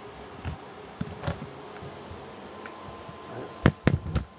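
Handling noise with a low steady hum under it: light clicks, then three or four sharp knocks in quick succession near the end, as hard objects are handled and set down on a wooden desk.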